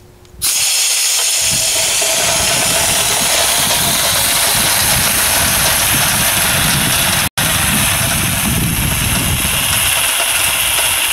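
Compressed air hissing through a homemade Tesla turbine driving an RC car: a loud, steady hiss that starts suddenly about half a second in, with an instant's dropout about seven seconds in.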